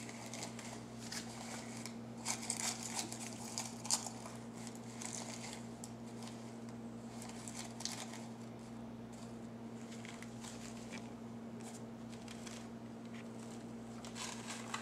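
Faint, irregular rustling and crinkling of artificial rose petals being handled and fluffed, heaviest in the first few seconds, over a steady low hum.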